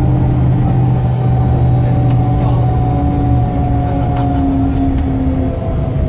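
DAF DB250LF double-decker bus heard from inside on the move: a steady engine drone under a drivetrain whine that slowly falls in pitch.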